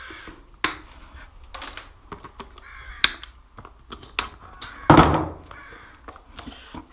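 Scattered clicks and knocks of hand tools and parts being handled while a motorbike's number board is taken off, with one louder harsh burst about five seconds in.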